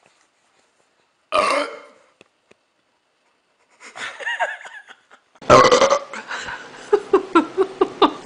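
A person burping: one short, loud burp about a second in, followed by further vocal sounds that grow louder over the last few seconds.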